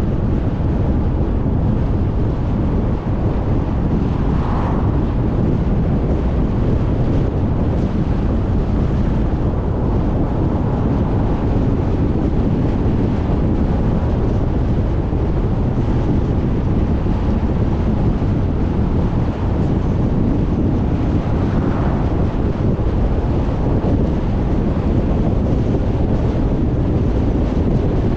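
Steady wind rumble on the microphone and road noise from a car driving on a paved road, heavy in the low end. The noise swells briefly twice, about five seconds in and again about twenty-two seconds in.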